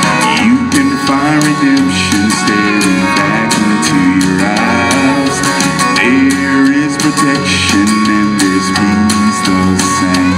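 Male vocal group holding sustained backing harmonies under a steady beat of short percussive clicks, an instrumental-style passage with no sung lyrics.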